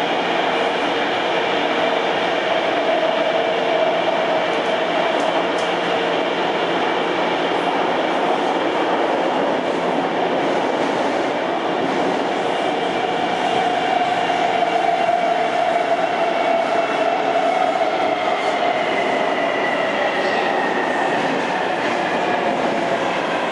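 Taipei Metro C321 train running, with a steady rumble of wheels on rail. Faint whining tones drift in pitch over it, and the higher one falls steadily over the last few seconds.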